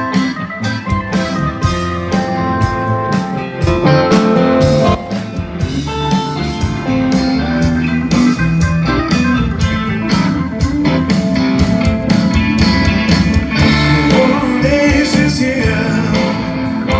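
Blues-rock band playing live: electric guitars, bass and drums together in a steady groove.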